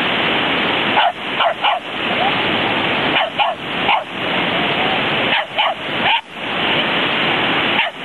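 Dog barking in short bursts of two or three, over steady surf and wind noise.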